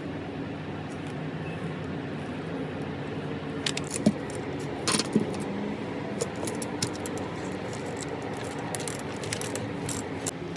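Small metal parts and tools clinking and tapping as a motor is worked on, with the sharpest clicks about four and five seconds in, over a steady low hum.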